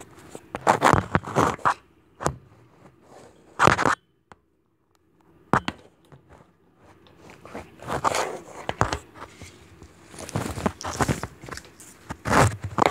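Handling noise on a phone's microphone: fingers rubbing, scraping and knocking against the phone in irregular crunchy bursts. The sound cuts out completely for about a second a little after four seconds in.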